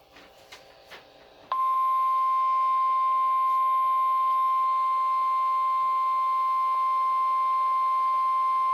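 NOAA Weather Radio 1050 Hz warning alarm tone: a single steady, unbroken beep that comes on suddenly about a second and a half in and holds at one pitch. It is the attention signal that announces a warning broadcast, here a flood warning. A few faint clicks come before it.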